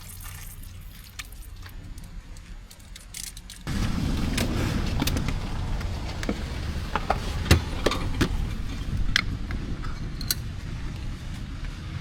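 A few quiet clicks, then, about four seconds in, the low rumble of a Tank 500 SUV driving over rough, broken road starts abruptly. Sharp knocks and rattles come through it at irregular moments.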